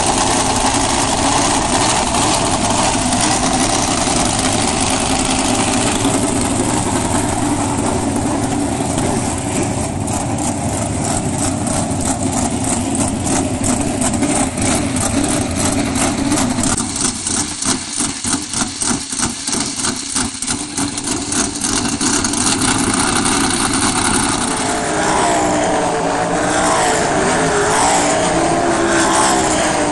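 Loud 410 sprint car V8 engines running in the pits, with an even pulsing beat for several seconds in the middle. In the last few seconds, sprint cars are out on the dirt track, their engine notes rising and falling.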